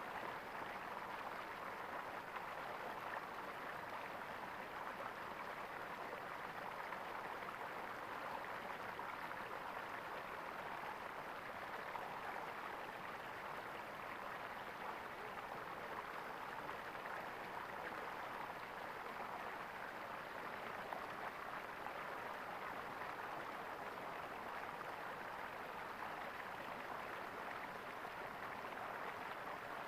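Water gurgling steadily in a small stream.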